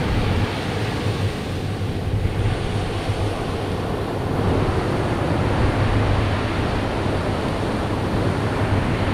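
Ocean surf breaking on a sandy beach as a steady wash of noise, with wind rumbling on the microphone.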